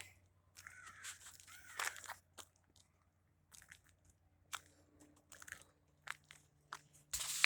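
Scattered soft crunches and rustles, with a louder stretch of rustling and crunching starting near the end.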